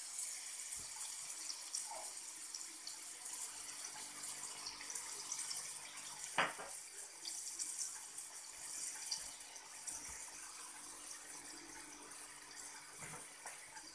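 Steady rush of running water, like a kitchen tap, with one sharp click about six seconds in.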